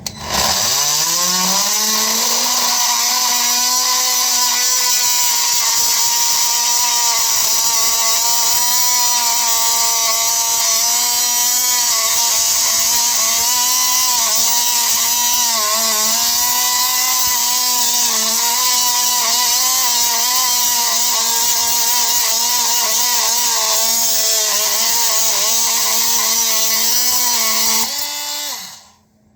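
Power saw cutting through a rusted toilet bolt, with a blade that is not really up to the job. The motor whine rises as it spins up, runs steadily with small pitch dips as the blade bites, then winds down and stops near the end.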